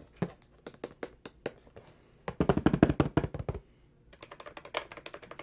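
Keys on a computer keyboard being typed: a scattered few clicks, then a fast, loud run of clicking a little over two seconds in, followed by lighter, quicker clicking near the end.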